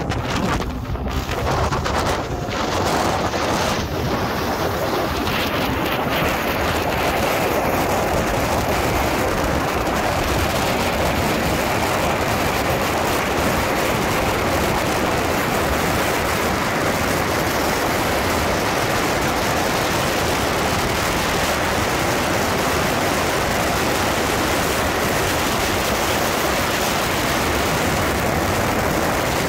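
Steady rush of wind buffeting the microphone on a motorcycle moving at highway speed, with road noise mixed in.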